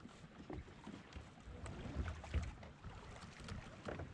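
Sounds of a kayak on the water: a few short knocks and handling noises from gear in the boat, over low wind buffeting the microphone that swells about two seconds in.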